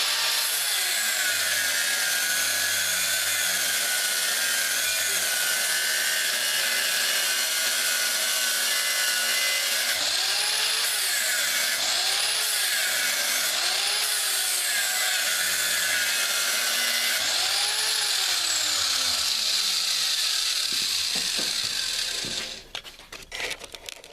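Power tool with a 36-grit abrasive grinding the cutting edge of a dull lawn mower blade: a steady grinding rush whose motor pitch swings up and down several times as the tool is worked along the edge. Near the end the motor winds down and the grinding stops, leaving a few clicks and handling noises.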